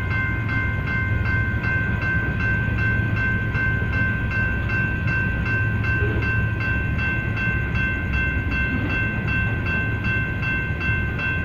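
BNSF coal train's hopper cars rolling past over a grade crossing with a steady low rumble. The crossing's warning bell rings continuously over it in quick, even strikes.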